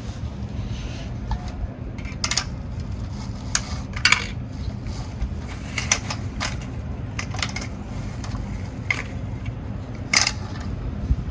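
Toy trucks being handled and moved about: scattered light clicks and clinks, about a dozen at irregular intervals, the sharpest about ten seconds in, over a low steady hum.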